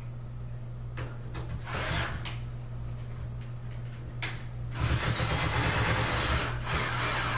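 Day bed assembly work: a couple of sharp knocks and short bursts of rasping noise, then a longer stretch of scraping, grinding noise lasting about two seconds, from a tool working on the bed's bolts and parts. A steady low hum runs underneath.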